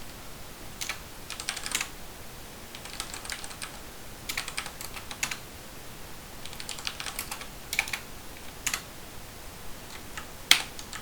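Typing on a computer keyboard in short bursts of keystrokes with pauses between, and one harder keypress about ten and a half seconds in.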